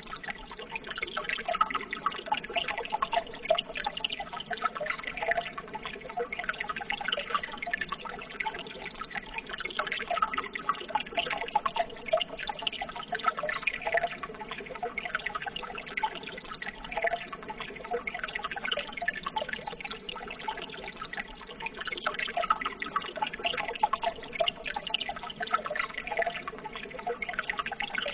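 Running water trickling and splashing steadily, a continuous babble of small splashes.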